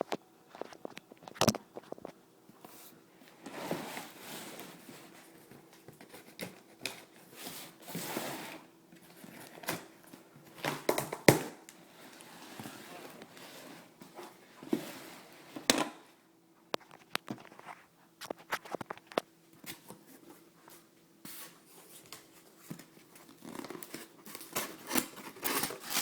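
A cardboard shipping box being opened by hand: packing tape tearing, with irregular crinkling and rustling of cardboard and packing material and occasional sharp knocks.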